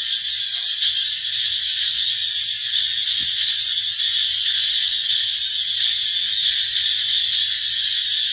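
Steady, loud, high-pitched insect chorus, a cicada-like hiss that holds unbroken without rising or falling.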